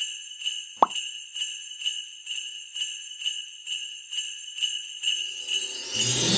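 Sleigh bells shaken in a steady rhythm, about two shakes a second, with a short falling pop about a second in. Near the end a swell rises into music.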